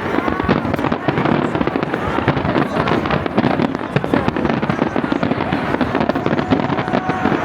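Fireworks going off in a dense, continuous barrage: many bangs and crackles overlapping with no pause.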